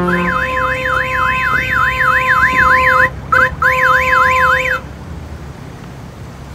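Electronic siren warbling rapidly up and down, about four sweeps a second, over a steady two-note tone. It breaks off briefly just past three seconds, resumes, and stops a little before five seconds, leaving a low rumble.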